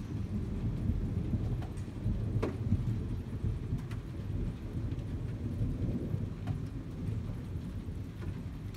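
Rolling thunder from a thunderstorm: a deep low rumble that swells in at the start and keeps rolling, with a few sharp ticks scattered over it.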